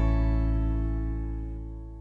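Closing music: a final chord rings on and slowly fades out.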